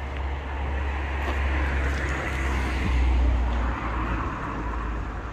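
A car passing by on the street, its traffic noise swelling to a peak about three seconds in and then fading, over a steady low rumble.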